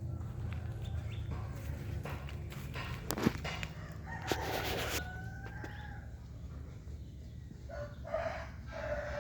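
A rooster crowing once, a long call starting about four seconds in, with shorter calls near the end, over a steady low rumble.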